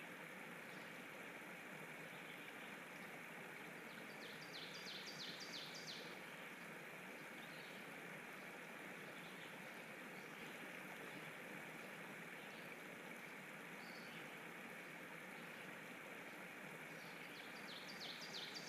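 Faint steady hiss of background noise, with a quick run of short, high, falling chirps about four seconds in and again near the end.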